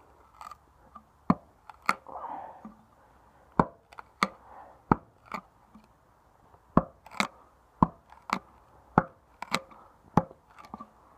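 Homemade knife point stabbed repeatedly into a wooden board, about a dozen sharp strikes at an uneven pace.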